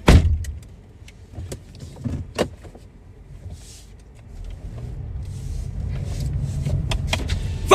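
A car door slammed shut hard, one sharp bang at the start. Then a low, steady rumble from the car, which gets louder about halfway through, with a few faint clicks.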